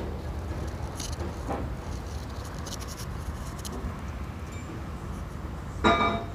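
Low steady rumble of a vehicle engine running, with a few light clicks. Near the end there is one short, loud, pitched sound.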